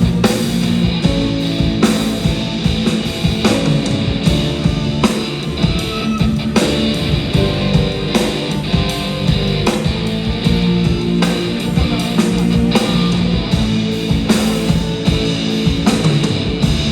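A live band playing a cover song, with guitar over a steady drum beat.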